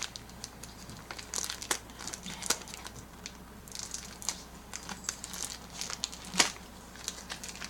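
Packaging on a small box being worked open by hand: crinkling and tearing in scattered short rustles, with one sharper crackle about six seconds in.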